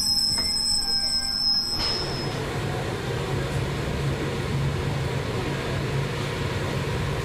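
Glacier Express train in motion: steel wheels squeal in thin, steady high tones, which cut off suddenly about two seconds in and give way to a steady rumble of the wheels on the rails.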